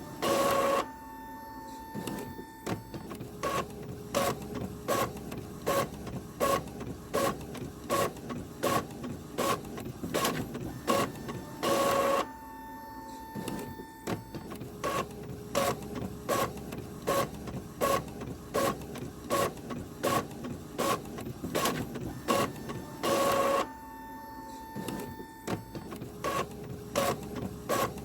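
Printer running: a steady run of short mechanical strokes about twice a second. A brief, louder whirr comes back about every eleven seconds.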